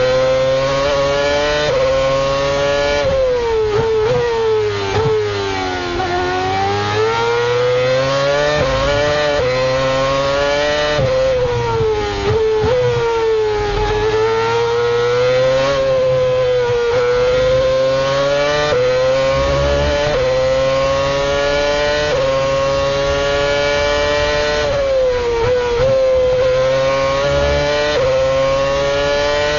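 The 2.4-litre V8 engine of a 2012 Lotus Renault Formula 1 car, heard from on the car at racing speed. The engine note climbs steeply, then drops in quick steps at each upshift. It sweeps down under braking and downshifts into corners, then climbs again, several times over.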